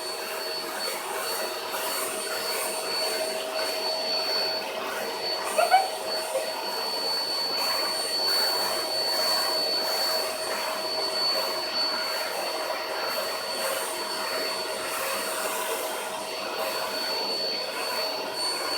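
Vacuum cleaner running steadily with a high whine, its nozzle being drawn over a cat's fur to groom it. A short, high rising call cuts through about six seconds in.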